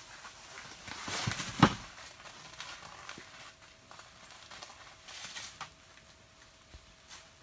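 Rustling of a winter glove and jacket as a glove is pulled on and the wearer leans down to rummage near the floor, with scattered small taps and one heavier thump about a second and a half in.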